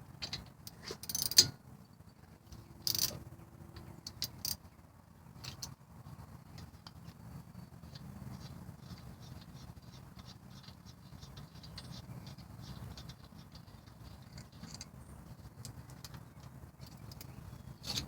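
Hand tools clinking and knocking on metal while the brake caliper is being unbolted: a few sharp clinks in the first few seconds, the loudest about a second and a half in, then scattered faint ticks.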